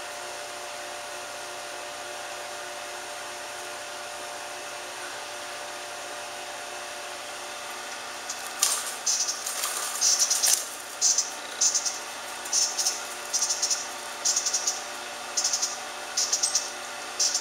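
A cockatiel gives a string of short, high, raspy chirps, roughly one a second, starting a little past halfway. Before and under them runs a steady hum.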